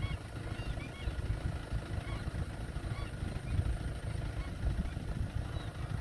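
A large mixed flock of waterbirds (egrets and dark wading birds) calling: many short, overlapping high calls scattered throughout, over a steady low rumble.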